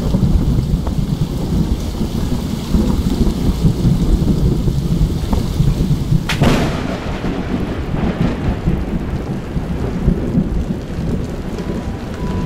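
Thunderstorm: steady rain with a low rolling rumble of thunder, and a sharp thunderclap about halfway through that rumbles away.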